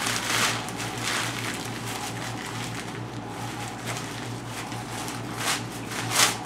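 Sheet of newspaper being crumpled and squeezed by hand into a ball, a crackling crinkle, with louder bursts at the start and twice near the end.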